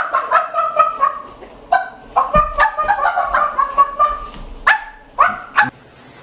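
A person's voice imitating a chicken: clucking in quick runs of short, high calls, then a few separate squawks near the end.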